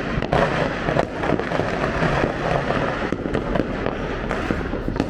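Firecrackers going off, a dense, continuous crackle of many small sharp pops with no pause.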